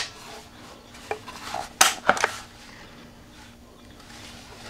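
Rock Island Tradition 20-gauge single-shot shotgun's break action being opened by hand: a light metallic click about a second in, then two sharper clacks a little before the middle.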